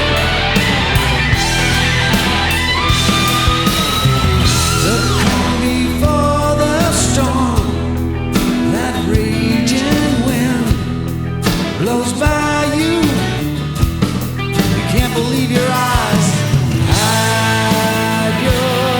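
Rock music: an instrumental section with a band and gliding lead lines over a steady, dense backing.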